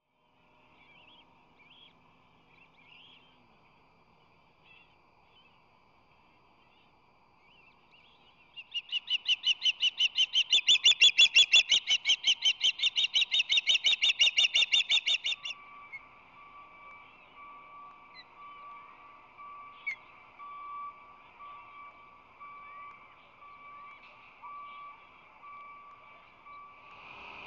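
Osprey calling: a rapid run of loud, high chirps, about six a second, lasting some seven seconds through the middle, with faint scattered chirps before and after.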